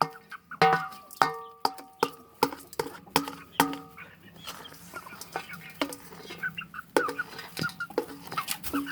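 Chickens pecking cooked egg from a bowl: sharp beak strikes on the bowl, about two a second for the first few seconds, each leaving a short ringing tone. After that the pecks come thinner and softer, among quiet clucking.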